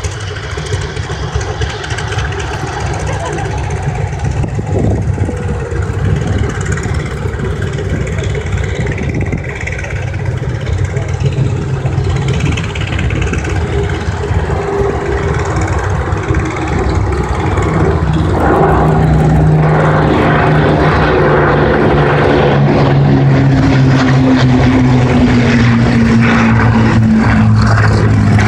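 A formation of propeller-driven piston-engined aircraft approaching low over the airfield. The engine drone grows louder from a bit over halfway through, its pitch sinking slowly as the planes draw near.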